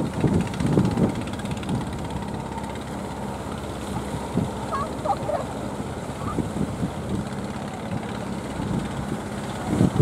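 Fishing boat engine running steadily, with wind buffeting the microphone in loud gusts during the first second.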